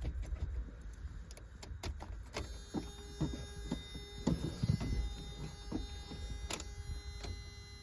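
A start attempt on a 1993 Mazda Miata that fails to crank: scattered sharp clicks, then a steady electrical hum or whine from about two seconds in, with no starter motor turning. The owner puts the no-crank down to bad grounding and a faulty starter relay.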